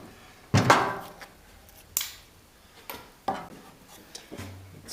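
About five irregular, sharp knocks of a hammer striking a wooden rail, breaking out waste wood between saw cuts. The loudest knock is about half a second in.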